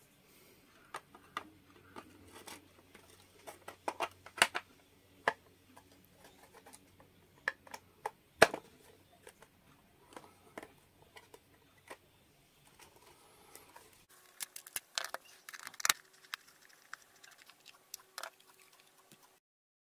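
Plastic case of a Hioki 3030-10 analog multimeter being handled and closed up: scattered clicks and knocks of the back cover and housing, the sharpest about eight seconds in and a quick run of them a few seconds later.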